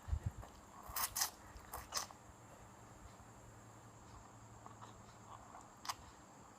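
Eating noises close to the microphone: a few short, crackly bites and mouth sounds, four in the first two seconds and one more near the end.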